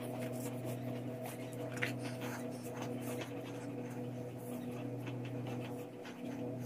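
Steady low hum of an appliance running in the room, with faint soft rubbing of hands spreading lotion on the legs.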